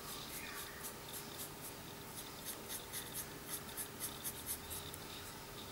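Dove blender pen's brush tip scratching softly across watercolour cardstock in quick, short, repeated strokes, blending and lifting water-based marker colour to lighten it.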